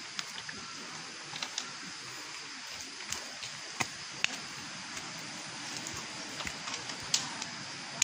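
Footsteps on a dirt forest trail: scattered sharp clicks and knocks, loudest a little under four seconds in and again near the end, over a steady background hiss.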